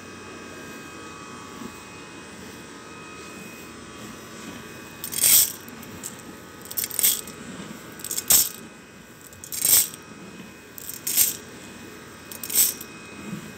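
Dry small red grains pouring and shifting in and around a metal tin can, in six short rushes about a second and a half apart, starting about five seconds in.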